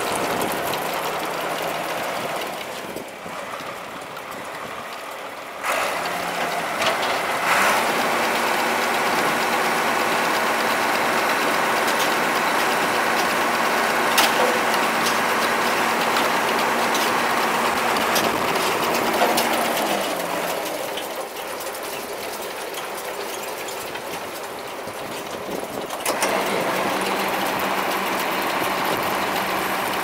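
Tractor engine running steadily, powering a Vermeer 504 Super I round baler whose mechanism rattles along with it. The level shifts up and down several times, and a steady hum sits under the noise for about twelve seconds in the middle.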